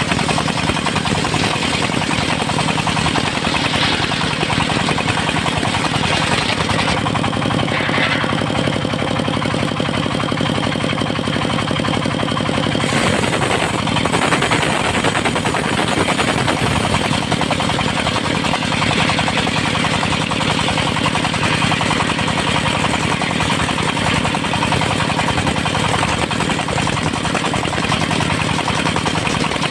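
Engine-driven mobile circular sawmill running steadily while sawing teak: a loud, continuous machine sound with a rapid pulsing engine beat. It shifts in tone a couple of times as the cut goes on.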